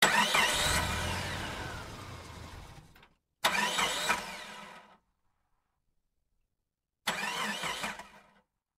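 Car engine sound effect in three short bursts, each starting loud and dying away, with silent gaps between them. The first is the longest, at about three seconds.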